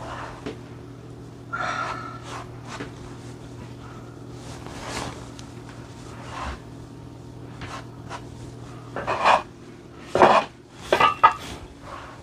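Soft, irregular scraping and tapping of gnocchi dough being folded by hand on a cutting board, over a steady low hum. Near the end a few louder short sounds come in quick succession, a dog snorting and whimpering.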